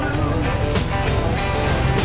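Rock music soundtrack: drums and bass with a steady beat, in a gap between sung lines.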